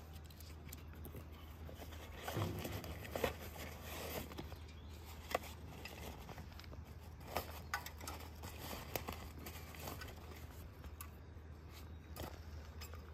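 Unboxing handling: cardboard box flaps and a fabric carry bag rustling, with several sharp clicks and knocks as a folding metal card-type camping stove is taken out.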